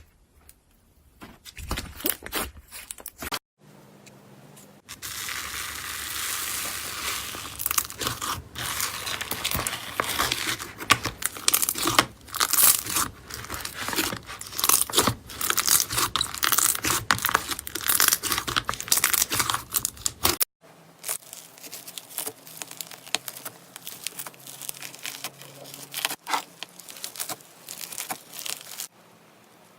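Slime being poked and squeezed by hand, giving dense crackling and popping clicks. The sound comes in several separate stretches with abrupt changes, densest and loudest through the middle.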